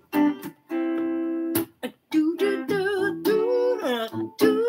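Guitar played as a short melodic lick of plucked single notes: one note held for about a second near the start, with several notes bent in pitch near the end.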